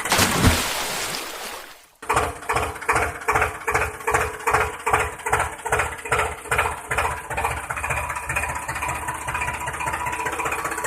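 A rushing noise that fades away over the first two seconds, then an engine chugging with an even beat of about two to three pulses a second, settling into a steadier run near the end.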